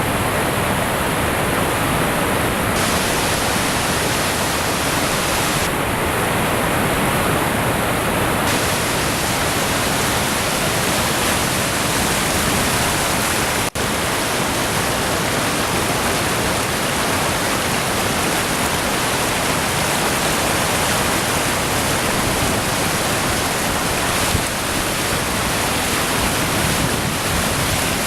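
Waterfall's water rushing and pouring in a steady, loud roar, with one split-second gap about halfway through.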